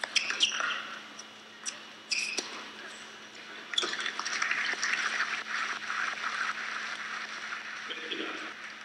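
A few sharp tennis ball strikes on racket strings during a rally, then the indoor crowd applauding from about four seconds in, fading near the end.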